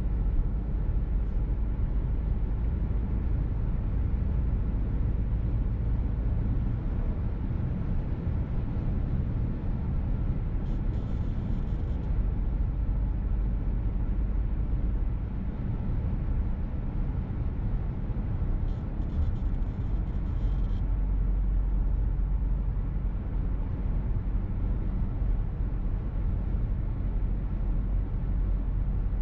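Steady in-cabin road and engine rumble of a VW T-Roc petrol car driving along. A short hiss comes through about eleven seconds in, and again at about nineteen seconds.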